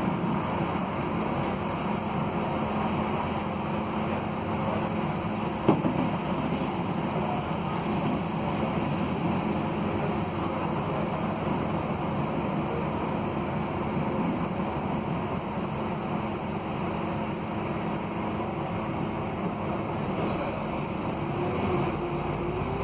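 Interior noise of a Scania K280UB city bus heard from the passenger cabin: its Scania DC09 diesel engine and drivetrain run steadily under a low rumble, with a single sharp knock about six seconds in and the engine note rising slightly near the end.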